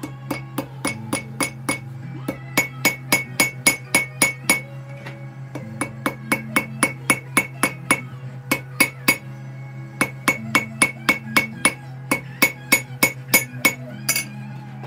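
Hand hammer striking red-hot Damascus steel on an anvil, forging a paring-knife blade: runs of ringing blows at about three to four a second, broken by a few short pauses. A steady low hum runs underneath.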